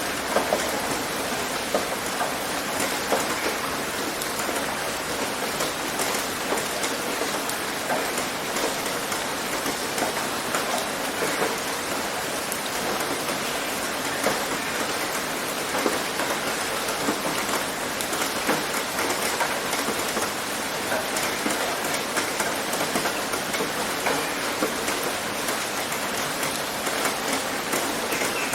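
Steady rain pattering on a tin roof, a dense, even hiss with many individual drops ticking sharply on the metal.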